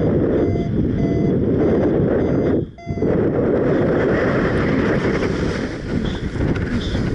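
Strong wind rushing over the microphone in flight, dropping out abruptly for a moment just under three seconds in. Over it come a few short electronic beeps from the pilot's paragliding variometer.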